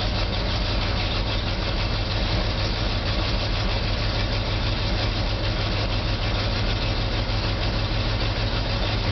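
The 390 cubic-inch carbureted V8 of a 1975 Ford F-500 truck idling steadily, heard from the cab. It has just been started cold and is warming up on the choke, running smoothly.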